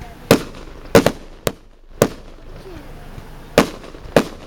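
Aerial firework shells bursting overhead: about seven sharp bangs at uneven intervals, a couple of them in quick pairs.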